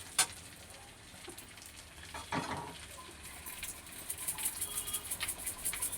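Hot rendered fish oil sizzling in a pan while it is being stirred, with a sharp click just after the start; the crackle grows busier over the last couple of seconds as the tempering spices fry.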